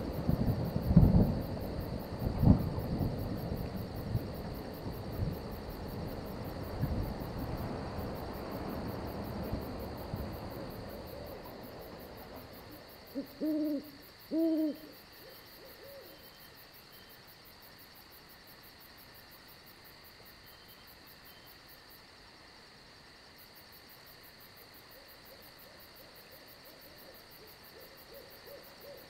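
Thunder rumbling, with a couple of sharp cracks in the first few seconds, dying away by about twelve seconds in. About halfway through an owl hoots twice, short low hoots, over a faint steady background of crickets.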